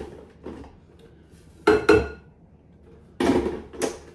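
Sharp knocks of a hard plastic Ninja food processor pitcher being tapped and set down, in pairs: two close together about two seconds in and two more near the end.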